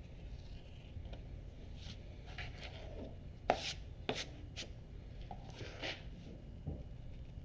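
Leather edge beveler shaving the corners off leather edges in short scrapes, with a few sharp knocks on the work table in the middle.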